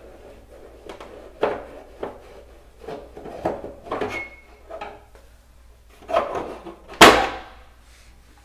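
Plastic front panel of a household consumer unit being worked loose and taken off: a string of plastic clicks and knocks, the loudest about seven seconds in.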